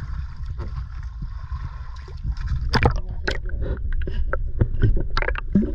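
Water sloshing and gurgling around a camera dipping under the surface beside the boat, over a steady low rumble. A run of sharp, irregular splashes and knocks starts about three seconds in.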